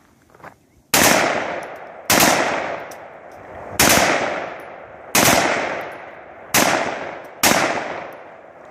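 Six rifle shots fired one after another at uneven intervals, each sharp crack trailing off over about a second.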